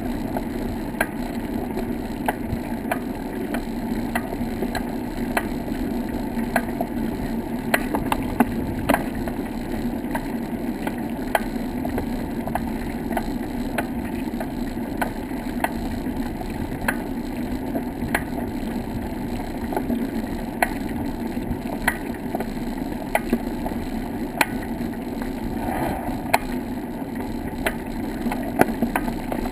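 Bicycle rolling along a wooden plank boardwalk: a steady rumble of tyres on the boards, with irregular clicks and knocks about one or two a second.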